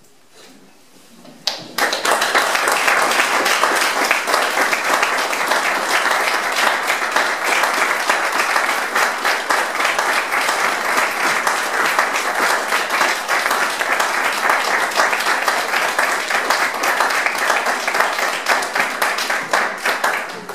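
Audience applauding, starting suddenly about a second and a half in and continuing steadily, with individual hand claps distinct in the mass.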